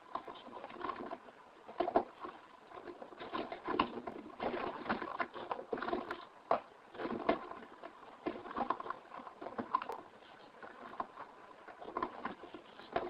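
Gravel crunching and rattling in irregular, uneven bursts, used as background noise for an EVP test.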